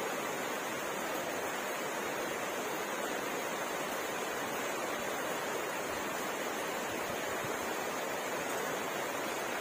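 Steady rainfall: an even, unbroken hiss of falling rain with no separate drops or thunder standing out.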